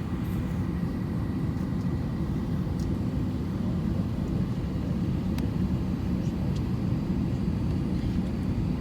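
Steady low rumble of cabin noise inside an Airbus A319 before departure, with a few faint clicks.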